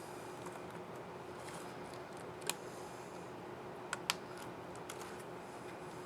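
Small sharp plastic clicks from an Acer Aspire R 15 laptop keycap and its scissor mechanism being handled and pressed into place: one click, then two quick clicks about a second and a half later, with a few fainter ticks.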